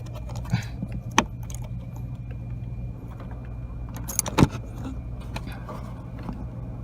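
Small metal clicks and clinks of the clutch cable's pin and clip being worked onto the clutch fork, with the loudest clack about four and a half seconds in, over a steady low hum.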